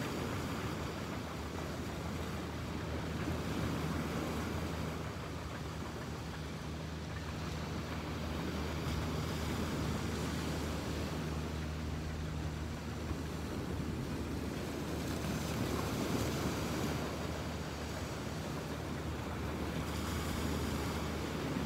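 Surf washing on a beach, with the low, steady drone of a tractor engine running underneath.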